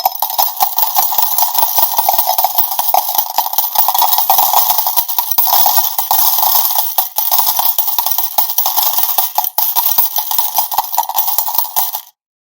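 Jackpot payout of coins pouring out, a dense unbroken stream of rapid metallic clinks that cuts off suddenly near the end.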